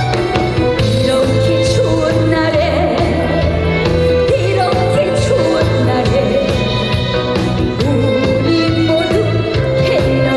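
Live trot song played by a band over a PA, with a steady bass beat and a melody line over it.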